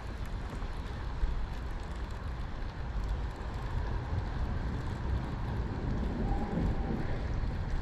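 Steady low rumble of wind buffeting the camera microphone, over a faint hiss of creek water, with one small click about a second in.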